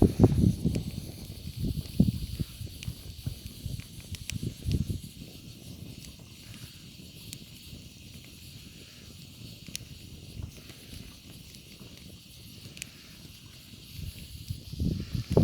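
Steady hiss of rain with scattered faint ticks. Low rustling thumps come near the start and again near the end.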